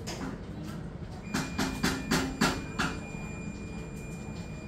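Kitchen clatter: about six quick knocks and clinks of utensils or jars being handled, over a steady low hum, with a faint high steady tone starting just over a second in.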